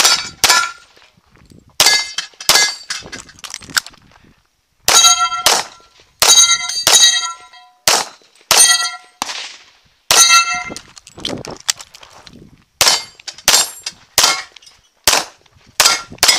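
CZ 75 Tactical Sport Orange pistol fired in quick strings at steel plates, roughly one to two shots a second, with short pauses about four and twelve seconds in. Many shots are followed by the clear ring of a struck steel target, the sign of a hit.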